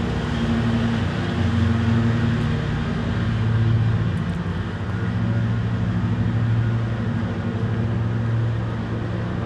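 Steady hum of a nearby mower's engine running at constant speed, with wind noise on the microphone.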